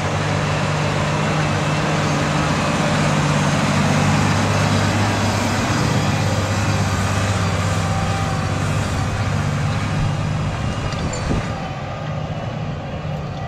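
Large tractor's diesel engine running steadily under load while it pulls a plow through the field, easing slightly near the end.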